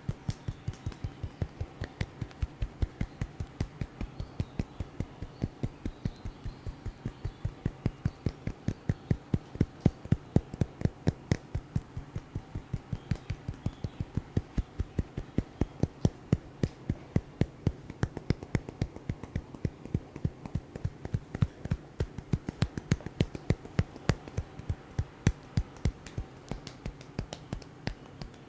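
Rapid rhythmic hand strikes of a percussive head massage, about four a second, each a sharp slap or tap, some louder than others, over a faint steady drone.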